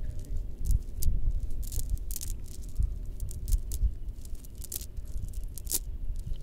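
A cast net being handled and picked through by hand: rustling of the mesh with scattered sharp clicks and rattles.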